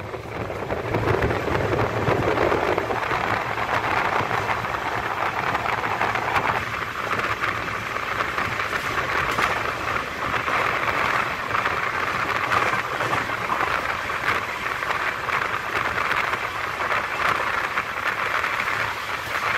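Passenger train running at speed, heard from an open coach door: a steady rush of wind and wheel-on-rail noise. Its lower rumble drops away about seven seconds in.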